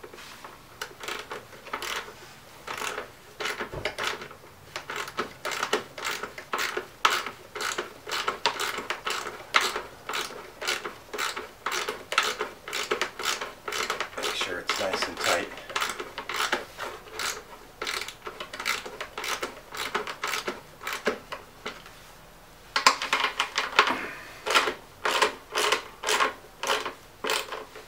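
Honda GCV160 recoil starter being worked by hand during reassembly: a long run of sharp ratcheting clicks, roughly two a second, with a short pause before a louder run near the end.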